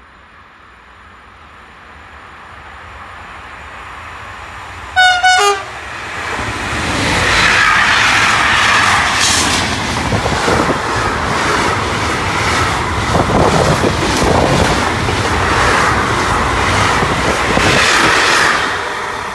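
Intermodal freight train approaching and running through the station at speed. A short horn blast about five seconds in, then a loud, steady noise of wheels on rails as the wagons carrying semi-trailers and containers go by, easing off near the end.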